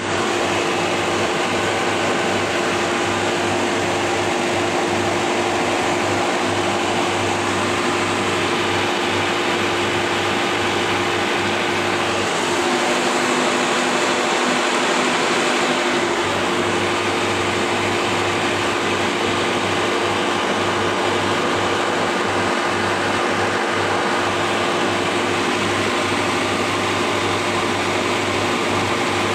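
Marine air-conditioning seawater cooling pump and the surrounding engine-room machinery running with a steady drone, a constant low hum and a steady mid-pitched tone over it. A second, lower tone joins for a few seconds around the middle.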